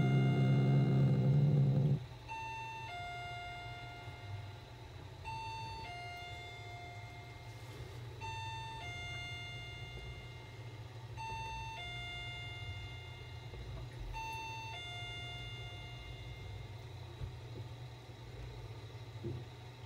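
Inhalation-therapy equipment runs with a loud buzzing hum that cuts off about two seconds in, leaving a low steady hum. Over it, an electronic beep pattern of two short notes repeats about every three seconds.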